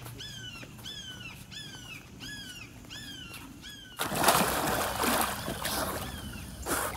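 A bird calling over and over, a short falling note about twice a second. About four seconds in, louder splashing of water from a man moving in the spring takes over, with one more call near the end.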